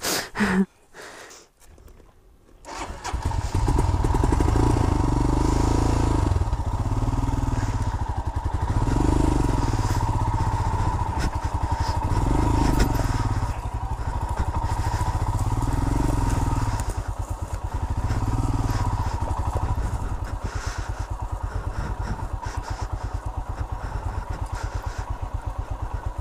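Royal Enfield Himalayan's single-cylinder engine running at low speed, coming in about three seconds in. Its note swells and eases every second or two as the throttle is opened and closed.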